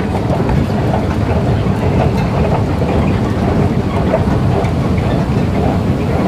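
Steady rumbling whir of a long escalator running, heard while riding it upward.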